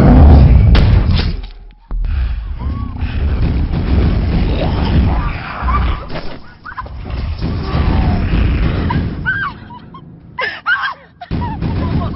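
Action-scene film soundtrack: music with heavy booms and crashing effects, and brief voices in between.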